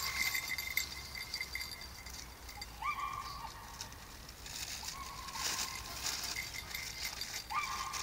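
Beagle whining: three drawn-out, high whines a couple of seconds apart, each rising at its start.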